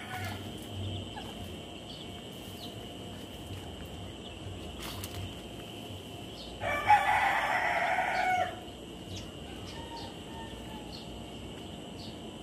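A rooster crows once, about seven seconds in, for nearly two seconds. Under it runs a steady insect drone, with short, faint, high peeps scattered through.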